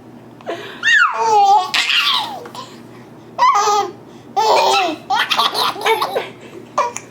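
A baby laughing in repeated bursts of belly laughter with short pauses between them, set off by an adult's fake sneezes.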